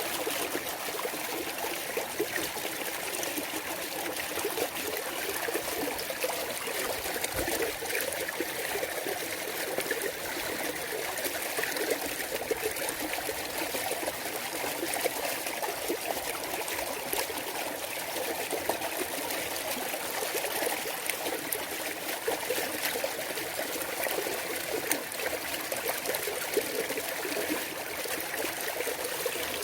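Clear mountain stream trickling and babbling over rocks: a steady splashing with many small crackly drips and bubbles.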